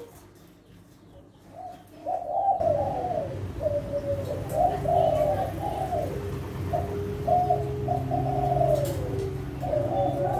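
Kelantan-strain spotted dove (derkuku) cooing in a string of repeated phrases, starting about two seconds in after a short quiet spell. A low steady hum sets in underneath shortly after.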